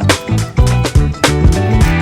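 Background music with a steady beat: a funk-style track with bass, drums and guitar.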